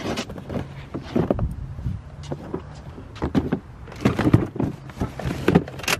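Irregular knocks, bumps and scrapes of a person climbing into a car's seat while handling a cardboard clutch-kit box.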